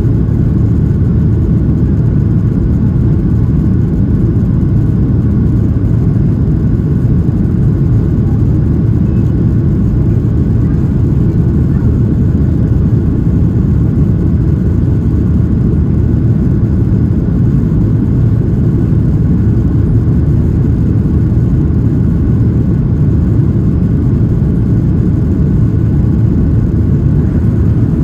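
Cabin noise inside a Boeing 737 airliner: a steady, loud low rumble of jet engines and airflow, with a faint whine above it and no change throughout.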